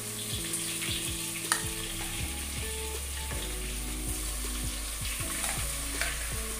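Chopped onions sizzling as they fry in hot oil and butter in a pan, with one sharp knock about a second and a half in.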